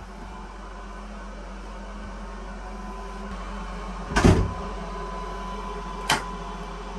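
Onboard bus toilet door pulled shut with a thump about four seconds in, followed about two seconds later by a sharp click from its lock lever, over the bus's steady interior hum.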